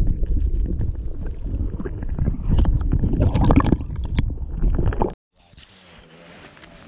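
Muffled rumbling and gurgling of water heard through a camera held underwater, with bubbles and small knocks. About five seconds in it cuts suddenly to a much quieter, steady wind-and-water hiss above the surface.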